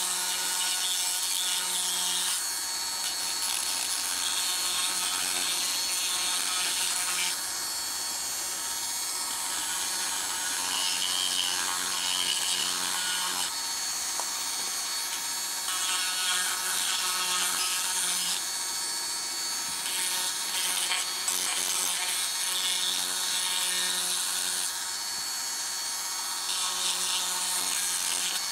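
Handheld rotary tool with a small sanding drum running, sanding the curved edge of a piece of pale softwood, with a steady high motor whine under a rasping of abrasive on wood. The sound changes every few seconds as the drum is pressed to and lifted from the wood.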